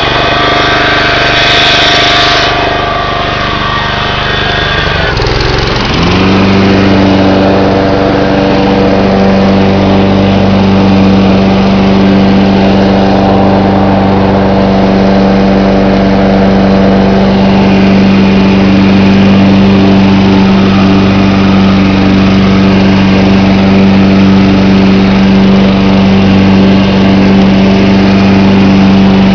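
John Deere 14SE walk-behind mower engine running fast, then dropping in speed over a few seconds and settling into a steady, lower-speed run.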